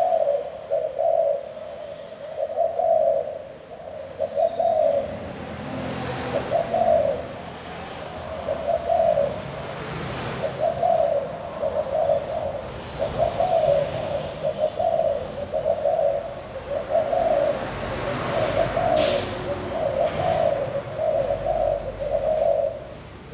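Thai spotted dove of the white 'vân rồng' line cooing over and over, a steady run of low coo notes about one a second. A low rumble sits under it, and a brief hiss comes near the end.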